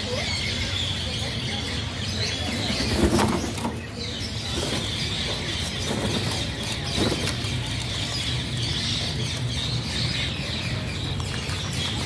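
Alexandrine parakeets flapping their wings as they fly and shift about, with the loudest flurry about three seconds in.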